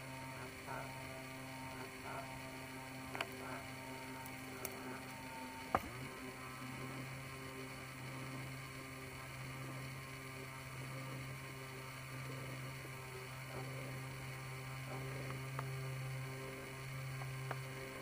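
A steady low hum with fainter higher tones over it, broken by a few short clicks, the sharpest about six seconds in.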